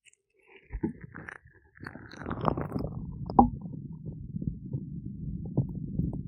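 Oiled gloved hands rubbing and massaging ears: low, muffled rubbing with wet squelches and small clicks. It starts about half a second in and turns steady after about two seconds, with one sharper squelch a little past the middle.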